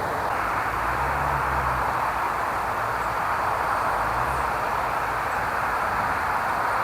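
A steady rushing noise, with faint low rumbles coming and going.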